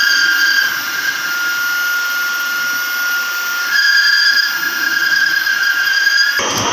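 Electric power tool motor running with a steady high-pitched whine and a hiss, growing louder about four seconds in and changing abruptly just before the end.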